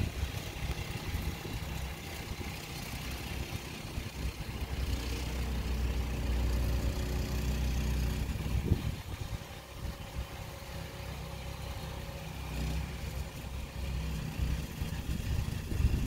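Small snow blower engine running off-picture, growing louder in the middle and then falling back, with a sharp knock about nine seconds in and a rise again near the end.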